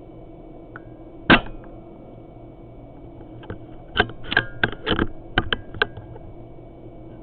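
A single sharp air-gun shot from the P-Rod about a second in, then a quick run of clicks and knocks over about two seconds from the gun being handled.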